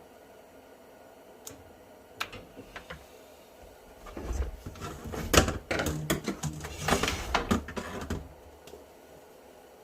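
Clicks, then a cluster of knocks and rattles from handling the parts of a small Ridgid shop vacuum, loudest from about four to eight seconds in.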